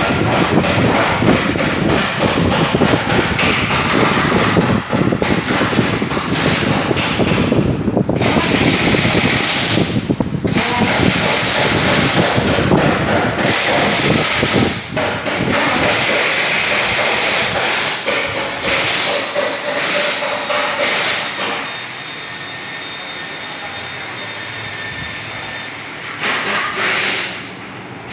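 Qualitas Q600P wall fans running, a dense noise broken by knocks and clatter. About three quarters of the way in it settles into a quieter, steadier sound.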